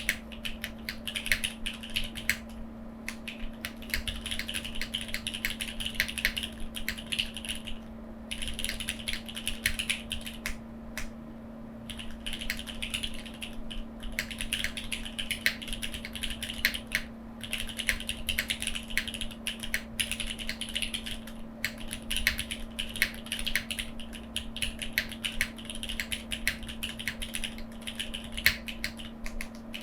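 Typing on a foamless Neo87 mechanical keyboard with Cherry MX2A Black linear switches and GJ Japan keycaps: a steady stream of fast keystrokes broken by a few brief pauses.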